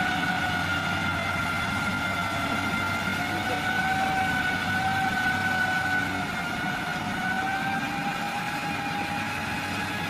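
Heavy construction machine's engine running steadily, with a high whine that drifts slightly up and down in pitch over a low rumble.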